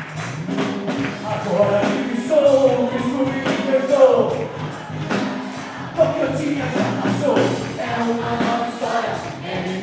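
Worship music played by a band with a singer, over a steady drum beat.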